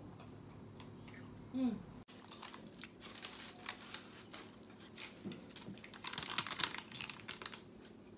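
Crisp, thin pizza crust crunching in a run of sharp clicks as a slice is bitten into and chewed, sparse at first and thickest in the last two seconds. A brief falling vocal sound comes about one and a half seconds in.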